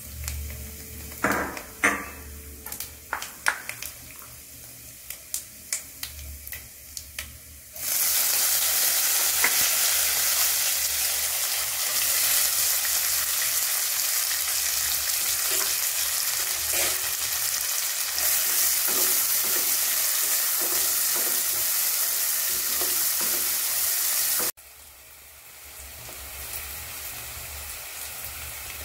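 Whole spices crackling in hot oil in a nonstick kadai, with sharp taps of a spatula stirring them. About eight seconds in, chopped onions go into the oil and the pan turns to a loud, dense sizzle. Near the end it drops suddenly to a softer, steady frying sizzle.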